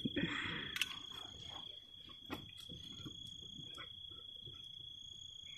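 Crickets trilling: one steady, unbroken high note, with a few faint clicks, the clearest a little over two seconds in.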